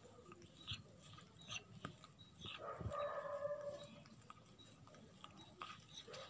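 Domestic kitten licking and nibbling its front paw while grooming: soft wet tongue clicks and mouth smacks, repeated irregularly and close up. A faint pitched sound joins in about two and a half seconds in.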